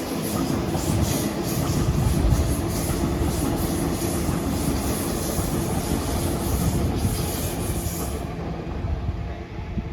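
Train passing through the station: a steady rumble and hum with repeated wheel clatter. The high hiss and clatter stop about eight seconds in and the sound falls away.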